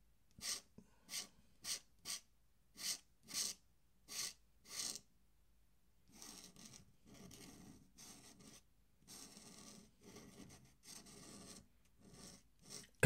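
Fine paintbrush loaded with Indian ink drawn across paper in quick pinstripe strokes, about two scratchy swishes a second for the first five seconds, then softer, more continuous brushing.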